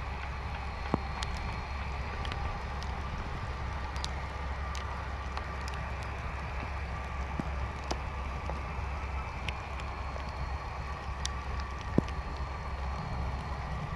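A BAe 146-200 jet airliner idling on the stand: a steady low rumble with a faint, even high whine. A few sharp ticks sound over it, the loudest near the end.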